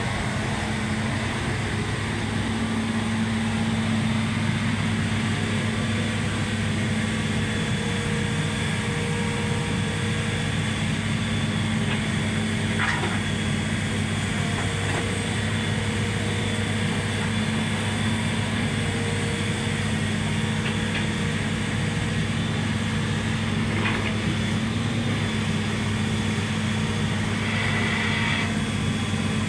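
An engine or motor running steadily with a constant low hum, with a few faint clicks over it.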